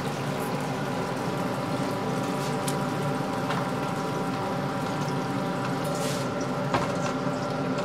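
Hake steak sizzling in a frying pan of hot olive oil, garlic and white wine: a steady sizzle with a few faint crackles, over a steady hum.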